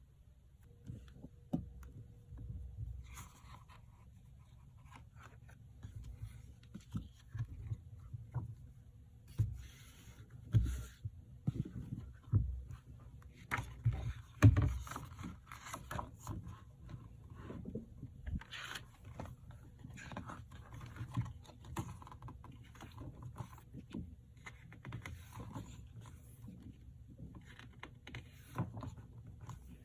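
Hands handling an album package as it is unboxed: irregular scraping and rustling with soft knocks and thumps, the loudest knock about halfway through. A faint steady hum sits underneath.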